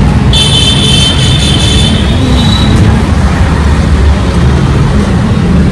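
Loud, dense rumble of road traffic with vehicle engines running. A high steady tone sounds for about two seconds near the start.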